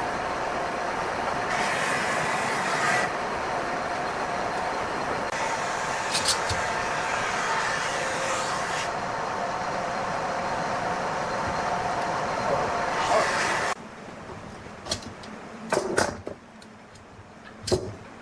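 Wood lathe running with a steady hum while a turning tool cuts the spinning wood in several stretches of scraping hiss. The running sound cuts off suddenly near the end, leaving a few sharp knocks.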